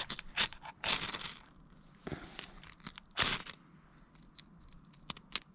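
Ferro rod being struck with a steel scraper over birch-bark tinder: several short, sharp scraping strokes at irregular intervals. The longest strokes come about a second in and a little after three seconds. The sparks do not light the tinder, so the strike has to be repeated.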